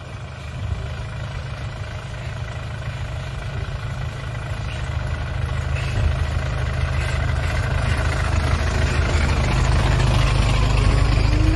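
A midibus's diesel engine running as the bus rolls slowly along the road, growing steadily louder as it draws near and passes close by.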